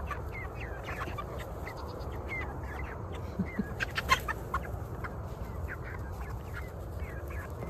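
White meat chickens clucking and peeping in many short calls. A few sharp clicks or knocks sound about four seconds in, the loudest just past four seconds.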